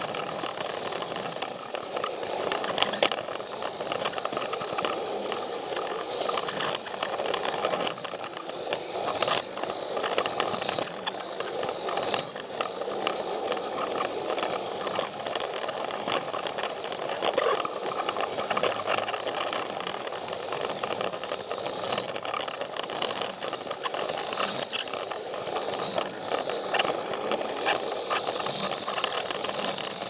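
Plarail battery-powered toy train running on blue plastic track, heard from on board: a steady motor whir and wheel rattle with many fine clicks as the wheels pass over the track joints.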